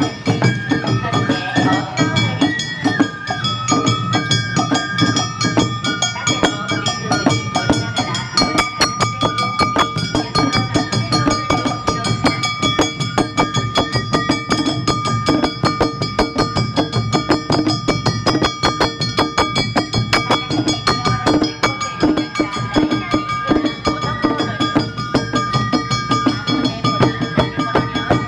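Awa Odori festival band playing: a bamboo shinobue flute melody over a dense, steady beat of taiko drums and a clanging kane hand gong.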